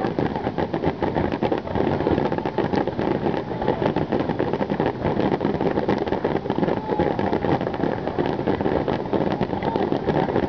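Fireworks finale: a dense, unbroken barrage of shell bursts and crackling that merges into a continuous rumble.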